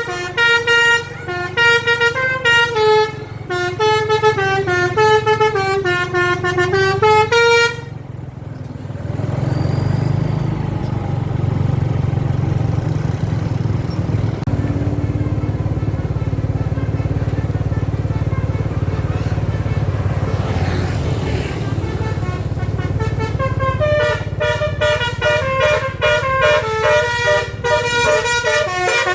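Indonesian bus telolet horn, a basuri-type multi-tone horn, playing a stepped melody for about eight seconds, then the bus engine running with a steady low rumble, then the horn tune starting again near the end.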